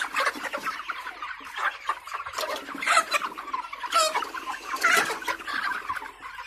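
A shed full of broiler chickens, five to six weeks old, clucking and calling over one another in a dense continuous chatter. A few louder calls stand out about three, four and five seconds in.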